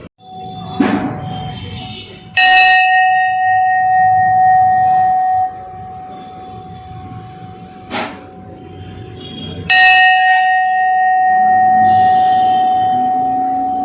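A metal bell struck twice for a sound check, each stroke ringing on in one clear steady tone with higher overtones; the first ring is stopped short about three seconds later, while the second rings on. A lighter knock comes before the first stroke and a short tap between them.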